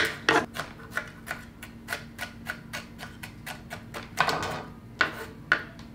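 Chef's knife finely chopping a jalapeño pepper on a wooden cutting board: rapid, uneven knocks of the blade on the board, several a second, with a few harder chops near the end.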